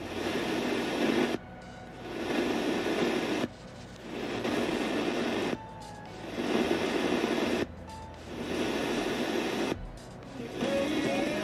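RDA5807M FM radio receiver seeking through the band with its tune button held down. Brief bursts of received audio, each about two seconds long, alternate with half-second mutes as it steps to the next station, about five times. Near the end it settles on a station playing music.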